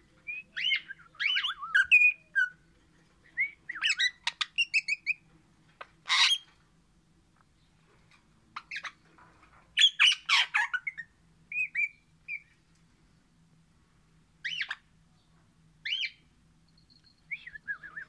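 Crimson rosella (Pennant's parakeet) singing: short phrases of quick chattering and whistled notes with pauses of a second or two between them, the last phrase sliding down in pitch.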